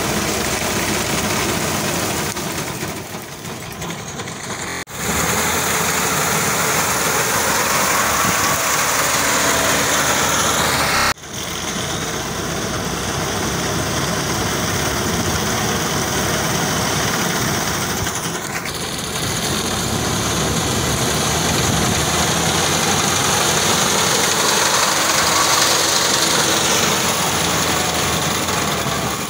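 Tractor's diesel engine running steadily under load while its front-mounted reaper cuts standing wheat, a loud continuous mechanical din. The sound breaks off sharply twice, about five and eleven seconds in, and is quieter for a couple of seconds before the first break.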